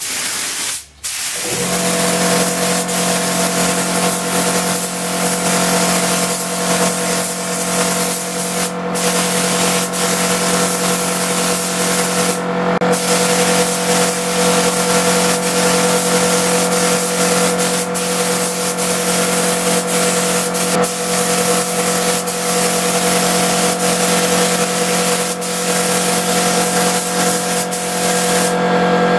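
Compressed-air paint spray gun spraying acrylic paint onto a plastic car bumper: a steady hiss of air and atomised paint over a steady hum. The hiss breaks off for a moment about a second in and a few times after.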